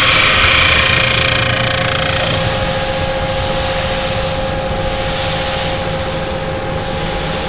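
CNC wood turning lathe running, its loud hissing cutting noise dying away over the first two to three seconds, leaving a steady machine hum with a constant whine.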